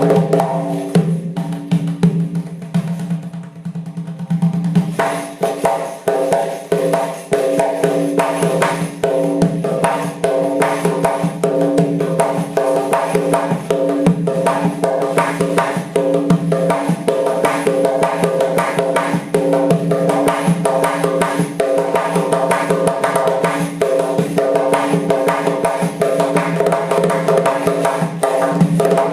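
Doira, the Uzbek frame drum with metal jingle rings, played in fast, dense rhythmic strokes. The playing thins out and softens a couple of seconds in, then picks up again into steady rapid strokes.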